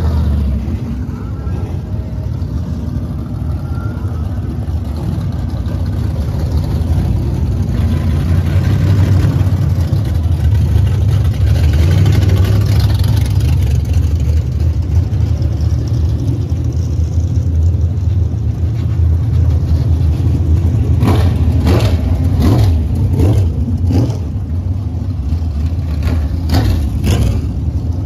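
Dirt-track modified race cars driving past one after another, their engines running loud with a low rumble that swells and eases as each car passes. A few sharp cracks sound during the last several seconds.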